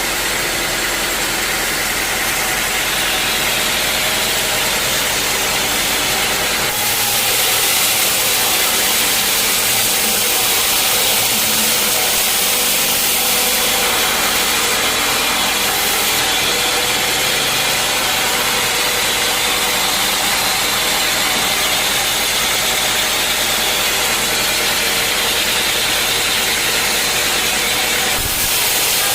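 Sawmill engine running steadily under a bright hiss, with abrupt shifts in the sound about seven seconds in and again near the end.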